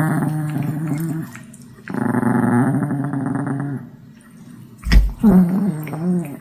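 A dog grumbling and growling in two long, drawn-out stretches, then a thump about five seconds in and a short wavering grumble that rises and falls in pitch.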